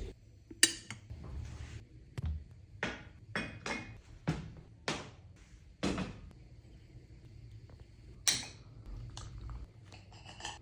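Kitchen utensils and dishes clinking and knocking: about a dozen short, sharp sounds spaced through, the sharpest about half a second in and again about eight seconds in.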